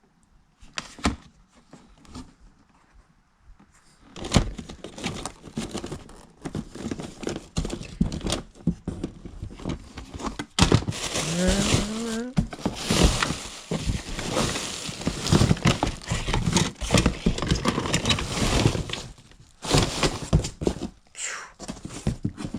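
Stored belongings being rummaged and shifted: crinkling and rustling of bags and packaging, with irregular knocks and thuds of boxes and objects being moved.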